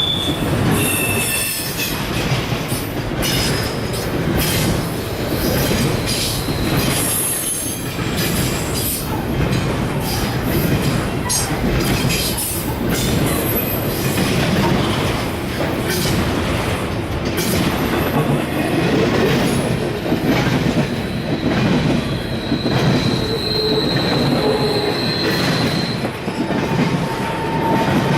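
Freight train cars rolling past: steady wheel-on-rail rumble with frequent clanks and knocks, and thin high wheel squeals, one held for a few seconds near the end.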